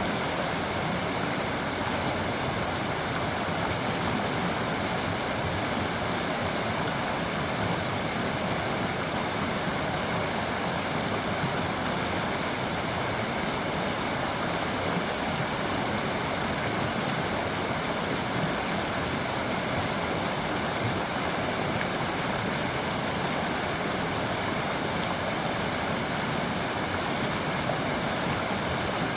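Creek water running and babbling steadily, an even rushing noise with no breaks.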